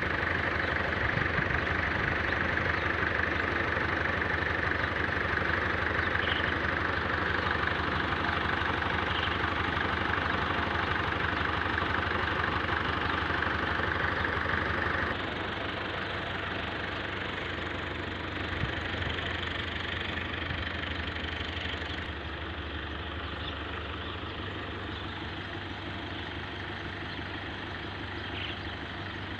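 Tractor engine idling steadily, quieter from about halfway through.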